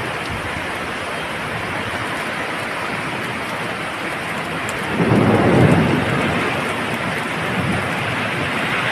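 Heavy rain falling in a steady hiss, with a rumble of thunder swelling about five seconds in and slowly dying away.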